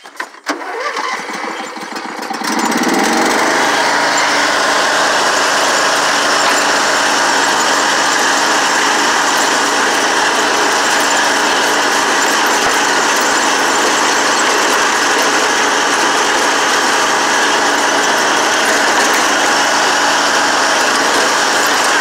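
Small engine starting about two seconds in, rising briefly in pitch as it catches, then running steadily.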